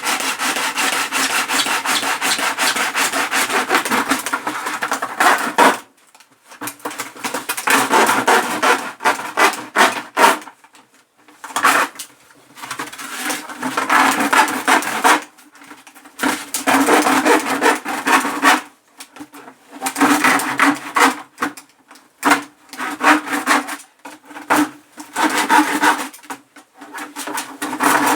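A knife sawing through a thick plastic water container in quick back-and-forth strokes. There is one unbroken stretch of about six seconds, then a run of short bursts of one to three seconds with brief pauses between them.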